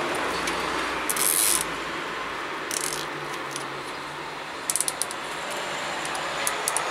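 Small plastic cable ties being pulled tight through their ratchet catches: a few short bursts of rapid zipping clicks, the loudest about a second in, over a steady background hiss.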